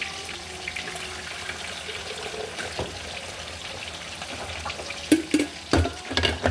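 Kitchen sounds: a steady hiss, like running tap water or food frying on the stove, then several sharp clattering knocks near the end as cups or dishes are handled.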